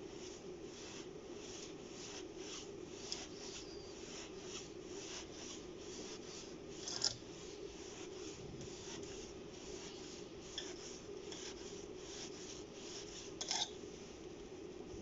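Swiss Army knife pliers gripping and turning out a screw: a run of short scraping rubs, about two or three a second, with a sharper click about seven seconds in and another near the end.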